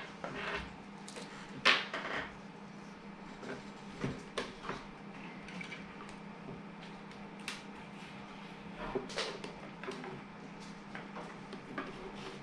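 Scattered light clicks and knocks of a 3D-printed plastic enclosure and its wires being handled on a wooden tabletop, with one sharper knock about two seconds in, over a steady low hum.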